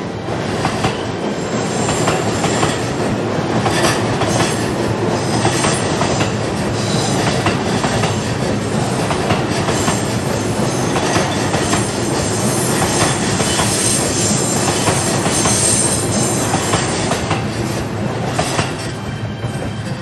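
JR Ome Special Rapid train, an E233-series electric commuter train, running across a steel girder bridge: a steady rumble with clickety-clack from the wheels over rail joints and a faint high wheel squeal. It fades away near the end as the last car clears the bridge.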